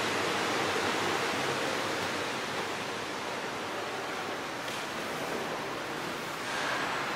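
Steady rushing noise of moving air from an electric standing fan running in the room, even throughout with no separate sounds standing out.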